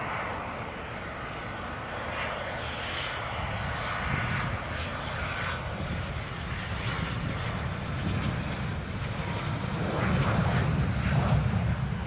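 Dassault Falcon 2000LX business jet landing, its two CFE738 turbofans running as it touches down and rolls out. The engine noise swells about ten seconds in as the thrust reversers are deployed.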